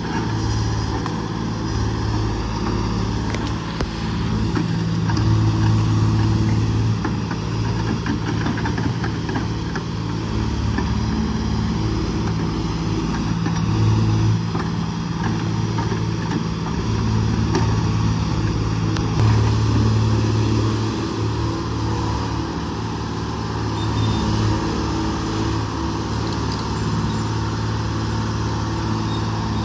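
Case 125B excavator's diesel engine running under working load as the bucket digs out tree stumps. The engine note swells and eases several times as the hydraulics take up the load.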